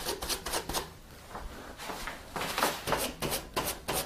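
A rag wiped with acetone over the glue surfaces of a wooden bow and its horn piece to degrease them: a run of short scratchy rubbing strokes, several a second. The strokes thin out about a second in and come back more strongly in the second half.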